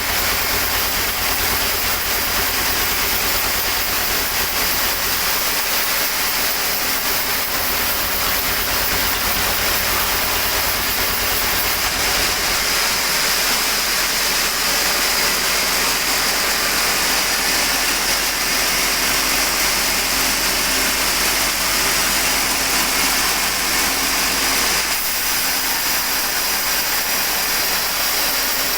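Sawmill machinery running steadily, sawing teak: a loud continuous hiss over a low motor hum that shifts in pitch a few times.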